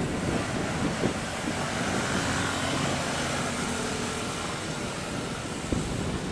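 Jet engines of a Batik Air airliner on landing approach: a steady rushing noise with a whine that swells in the middle, over wind on the microphone.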